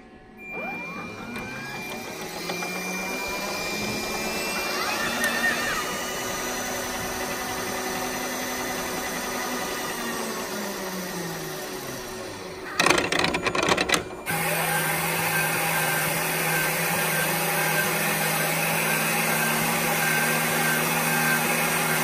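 Rotimatic roti maker running its cycle: motors spin up with a rising whine, run steadily, then wind down with a falling pitch about ten seconds in. A short loud clatter follows, then a steady kneading-motor hum as the dough is worked. There is no abnormal noise from the rotator bearing, which has just been lubricated with white grease: the kneading noise is fixed.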